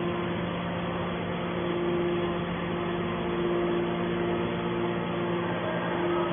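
Hydraulic scrap-metal baler running: a steady machine hum from its electric pump unit, holding an even pitch throughout.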